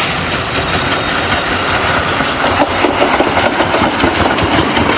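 Steam locomotive hauling a train of passenger coaches past, with a steady clatter of wheels on the rails.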